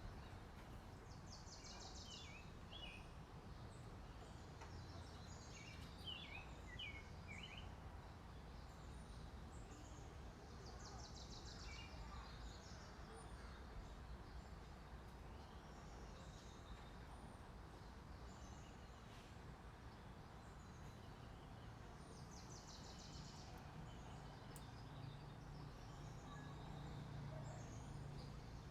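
Faint birdsong over a low steady background rumble: a high trilled phrase comes three times, about ten seconds apart, with short chirps between.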